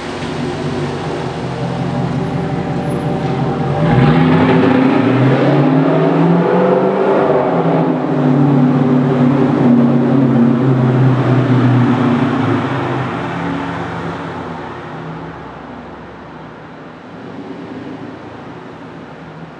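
Exhaust of a 2015 Dodge Challenger R/T's 5.7-litre Hemi V8, running through Dynomax Race Bullet mufflers with the resonators deleted. The pitch climbs about four seconds in as the engine accelerates, stays loud for several seconds, then dies away over the last few seconds.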